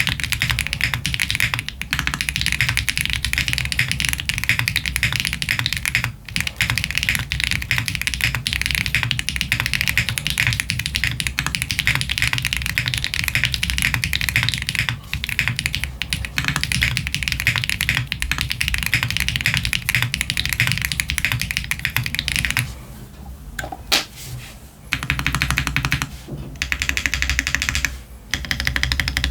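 Fast, continuous typing on a Jris65 mechanical keyboard with stock Gateron Type R switches and GMK Hiragana keycaps: a dense clatter of keystrokes. About three-quarters of the way in there is a short lull with only a few keystrokes, then the typing picks up again.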